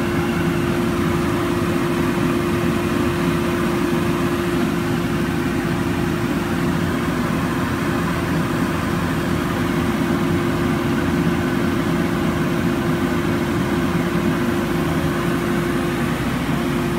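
Techno 4x8 HD CNC router running, its spindle and dust collection making a steady, unbroken drone with one constant tone.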